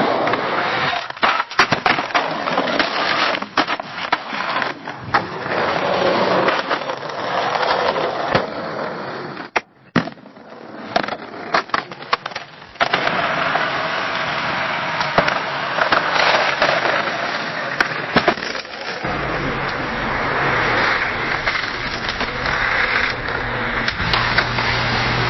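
Skateboard wheels rolling on pavement: a continuous rolling grind broken by irregular clicks and knocks. The sound drops out briefly about ten seconds in, and from about nineteen seconds in it runs more evenly over a low steady hum.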